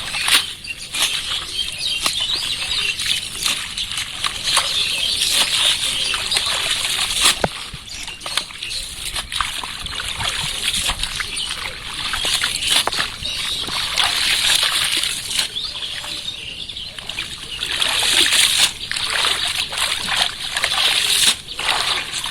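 Water splashing and sloshing without a break, made up of many quick, sharp splashes that swell and ease off in waves.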